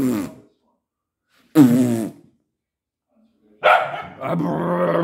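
Young dog barking: one short bark falling in pitch about a second and a half in, then a longer, drawn-out growling bark near the end.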